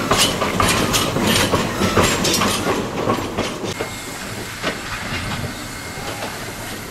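Two-foot gauge steam train hauled by Ng15 locomotive 123 running over the track: a rapid clickety-clack of wheels over rail joints, growing quieter after about three seconds as the train draws away.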